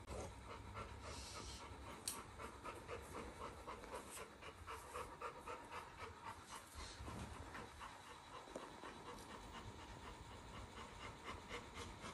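Yellow Labrador retriever panting steadily with its mouth open, about three quick breaths a second.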